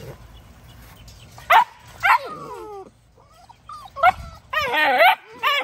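XL pitbull puppies yipping and whining at a wire pen: short high yips that drop in pitch about one and a half and two seconds in, more about four seconds in, then a longer wavering whine near the end.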